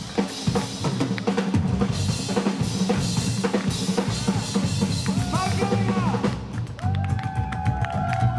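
Live rock'n'roll band music led by a drum kit: kick drum, snare and rimshots played in a fast, busy pattern. Near the end a long held high note joins the drums.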